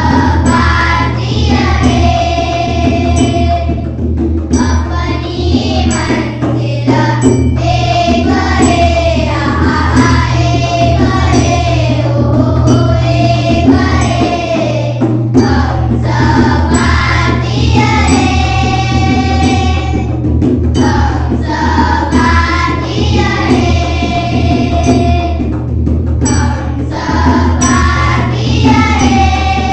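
A group of children singing a Hindi song together in unison, in phrases of a few seconds, with a tabla played alongside.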